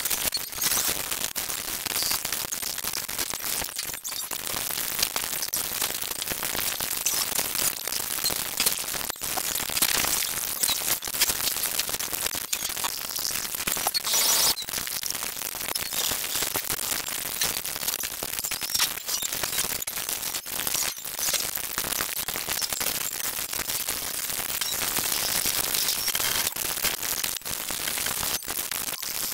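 Cartoon soundtrack sped up many times over, so that dialogue, music and effects merge into a dense, static-like hiss full of tiny abrupt cuts, with no words or tune to make out.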